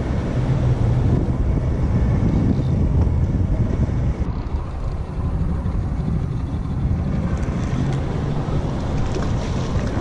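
Steady low rumble of wind buffeting the microphone on a small boat, with water and boat noise underneath.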